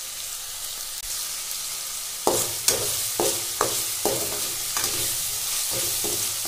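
Chopped onions sizzling in hot oil in a black non-stick kadai, being browned. From about two seconds in, a perforated metal spatula stirs and scrapes against the pan, with sharp clinks about twice a second over the steady sizzle.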